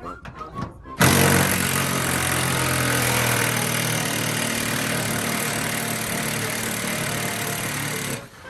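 A motor-driven machine starts abruptly about a second in, runs steadily with a low hum for about seven seconds, then cuts off.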